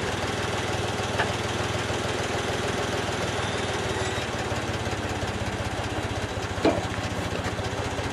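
Case 580K backhoe's diesel engine idling steadily, with a couple of faint clicks about a second in and again near the end.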